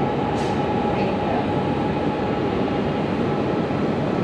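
Cat Linh–Ha Dong metro train running along the track, heard from inside the carriage: a steady rumble with a steady whining tone above it. A brief hiss about half a second in.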